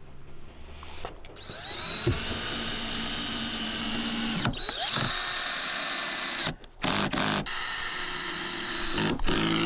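DeWalt cordless drill spinning up with a rising whine, then boring into steel angle-iron coping in several long runs with short stops between them.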